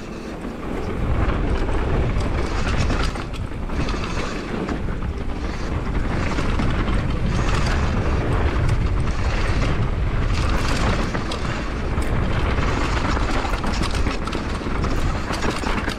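Downhill mountain bike running fast over a rough, rocky trail: a heavy rumble of wind and tyres on the action camera's microphone, with constant clattering knocks of the bike over the bumps.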